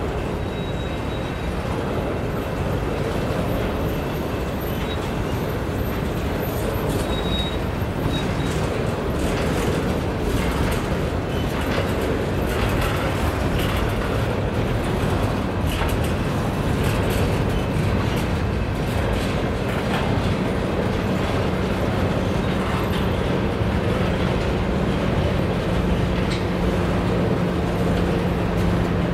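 Empty covered hopper cars of a freight grain train rolling past, wheels clicking over the rail joints with faint, brief wheel squeals. A steady low hum comes in about two-thirds of the way through.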